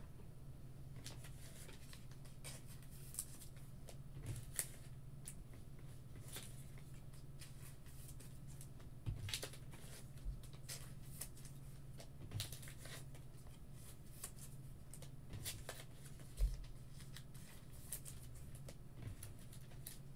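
Scattered, irregular light clicks and small handling sounds over a steady low hum.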